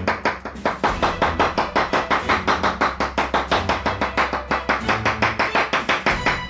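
Kitchen knife chopping fast on a wooden cutting board, about seven quick strokes a second, mincing soft pitted umeboshi (pickled plums) into a paste.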